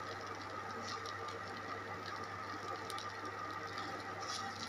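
Faint light ticks and scraping from a spatula stirring oats upma in a non-stick kadai, over a low steady hum.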